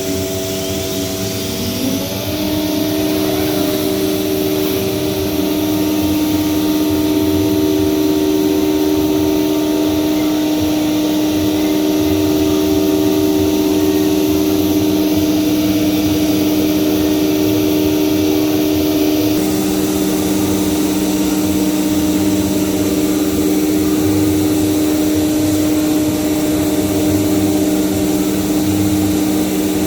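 Anderson America Spectrum 48 CNC router running: a steady machine whine made of several tones, rising in pitch about two seconds in as it speeds up. The mix of tones shifts about two-thirds of the way through.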